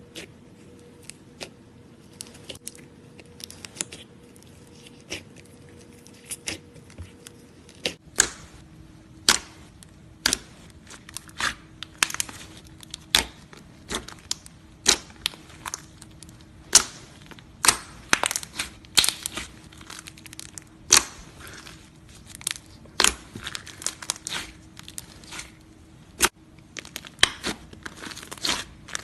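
Slime being squeezed and pressed by hand, giving irregular sharp pops and crackles of trapped air; the pops come sparsely at first and grow much more frequent after about eight seconds.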